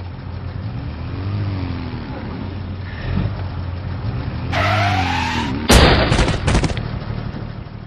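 Road traffic engine hum, then tyres screeching for about a second, followed by a loud crash with a few further bangs as a motorcycle collides and goes down.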